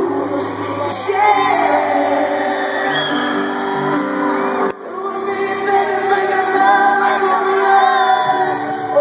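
Live pop concert in an arena: a singer holds long, sliding vocal lines over sustained band chords, with a brief break in the music about halfway through.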